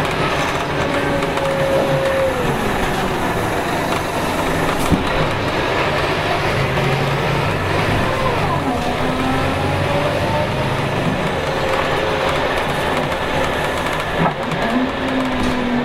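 Scania DC9 9.3-litre inline five-cylinder turbo diesel of a city bus, heard from inside the cabin while the bus drives under way through its ZF Ecomat six-speed automatic. The engine note dips sharply and climbs again twice, about halfway and near the end, with one short knock a few seconds in.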